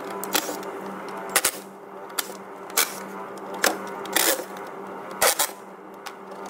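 A scattered series of sharp clicks and knocks, about nine, from a cordless driver and hard plastic air-intake parts being handled as the intake hose clip and air box screws are undone. A steady low hum sits underneath.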